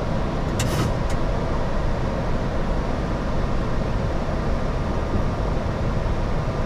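Steady noise of airflow and the CFM LEAP-1B engines, heard inside a Boeing 737 MAX flight deck during the climb after takeoff. A brief hiss comes in under a second in.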